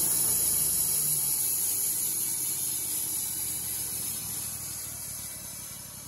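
Wood-Mizer LT35 bandsaw mill's band blade cutting through a cedar cant, a steady high hiss that gradually fades, with the mill's motor running underneath.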